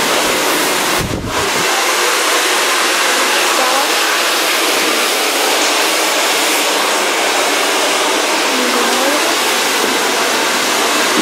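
Handheld hair dryer blowing steadily, a loud, even rush of air, with a brief dip about a second in.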